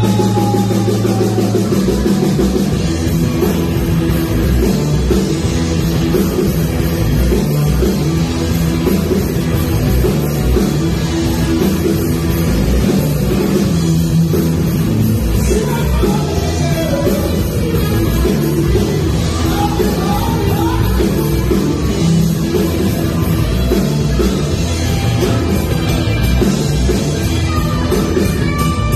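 Loud live rock band with drum kit, guitar and vocals. Sustained chords give way to a full-band groove about two seconds in.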